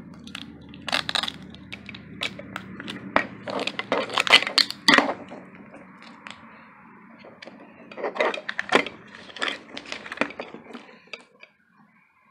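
Small toy packaging being unwrapped by hand, crinkling and crackling in irregular clusters of sharp clicks and rustles. It is quieter about halfway through and stops shortly before the end.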